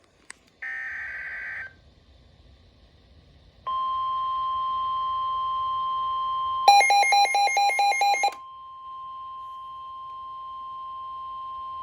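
NOAA Weather Radio Emergency Alert System tones. A short screech of digital SAME header data is followed by the steady 1050 Hz warning alarm tone. For about a second and a half near the middle, a louder rapid electronic beeping of about five beeps a second sounds over the tone, which then carries on more quietly.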